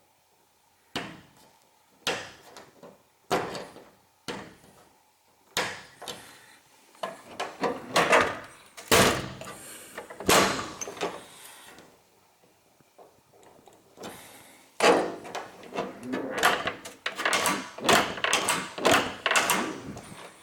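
Unit-bath bi-fold door being folded open and shut over and over: sharp clacks of the panels and fittings in the first few seconds, then longer scraping, rubbing runs as the panels slide along the track.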